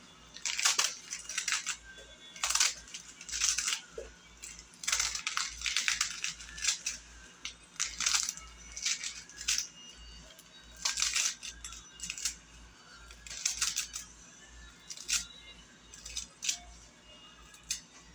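Irregular rustling and rattling strokes, roughly one a second, from salad ingredients being handled in the kitchen.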